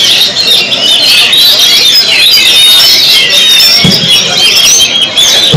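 Many caged songbirds singing at once, a dense, continuous chorus of high chirps and warbles.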